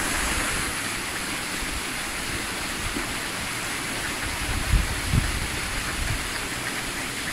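Steady rush of flowing water, with two low bumps a little past the middle.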